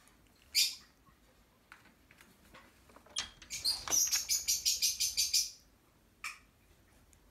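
Young Xoloitzcuintli puppies squeaking: one high squeak, then a rapid run of about a dozen high squeaks, some five a second, for about two seconds, and one more squeak near the end.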